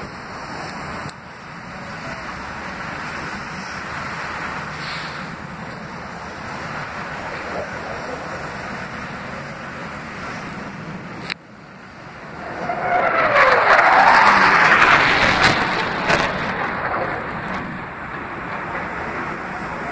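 Blue Angels F/A-18 Hornet jet noise: a steady distant roar, then about two-thirds of the way through a jet passes close by, its roar swelling loud with the pitch falling as it goes past, then fading.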